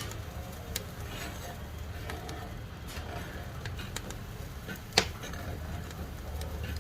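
Wood fire crackling in a wood-burning stove: scattered irregular pops and snaps, with one loud sharp pop about five seconds in, over a steady low rumble.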